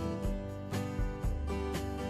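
Background instrumental music with a steady beat of about two beats a second.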